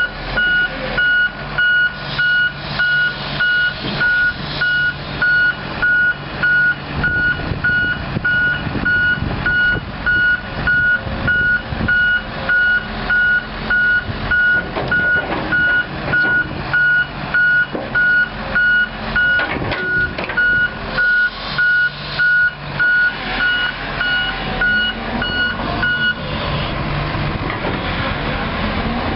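An excavator's travel alarm beeping about once a second over the running Komatsu six-cylinder diesel engine and hydraulics of a 1997 Komatsu PC200LC-6 excavator; the beeping stops about 26 seconds in while the engine keeps running.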